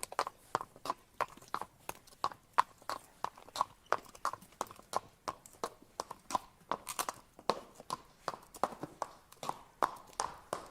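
Horse walking, its hooves clip-clopping in a steady rhythm of about three to four hoofbeats a second.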